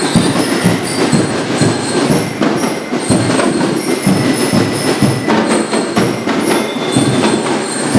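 Drum and lyre corps playing a marching number live: drums beating in a dense, steady rhythm, with high bell-lyre notes ringing over them.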